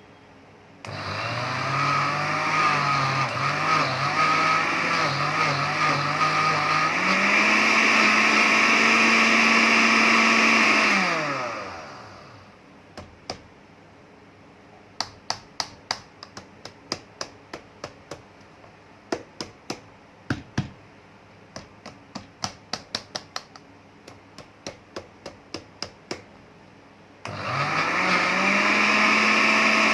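Blender's grinder attachment motor grinding sesame seeds into paste. It starts up, its pitch wavers and then rises and holds steady as the seeds break down, and it winds down. A long run of sharp clicks follows, and the motor starts again near the end.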